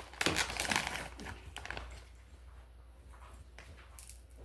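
Crinkling of a snack wrapper and crunching as a hard vegan rice roll is bitten. The sound is busiest in the first second and a half, then drops to a few faint clicks.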